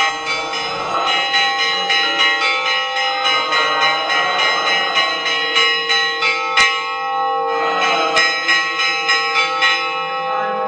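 Church bell struck rapidly and repeatedly, about three strokes a second, its overtones ringing on between strokes. There is a sharp clank about six and a half seconds in and a brief break in the strokes, which then resume and stop shortly before the end.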